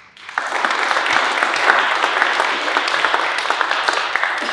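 Audience applauding: many hands clapping at once, starting abruptly and holding steady.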